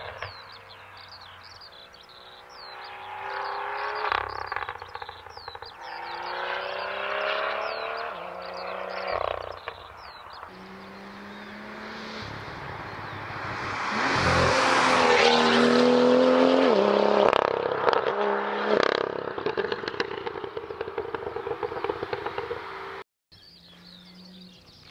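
BMW M2's turbocharged straight-six with a Fi aftermarket exhaust accelerating through several gears, its pitch climbing and dropping back at each shift. It then builds to a loud full-throttle run past halfway, followed by a string of crackles and pops from the exhaust as the throttle lifts.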